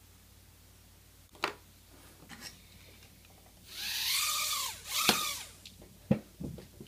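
TeenyDrone nano quadcopter's tiny motors and propellers spinning up in a high-pitched whine that rises and falls, in two bursts about halfway through, with its two freshly replaced rear motors now running properly. A few sharp knocks follow near the end as the little drone tips over.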